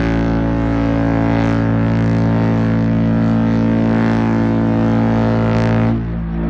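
A cruise liner's deep ship's horn sounds one long, steady blast that cuts off sharply near the end, a departure signal as the liner leaves.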